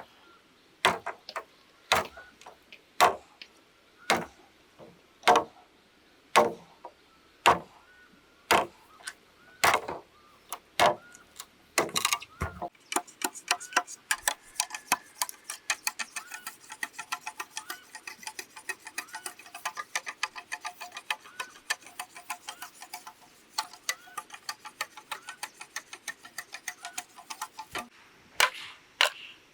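A hand tool striking bamboo, about one sharp blow a second for roughly twelve seconds. The blows then give way to a fast, steady run of lighter taps, with a few hard strikes again near the end.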